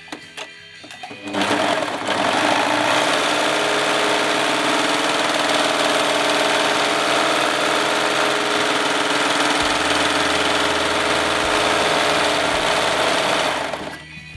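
Brother overlock machine (serger) running steadily as it stitches a seam in printed fabric. It starts about a second in, after a few light clicks, and stops just before the end.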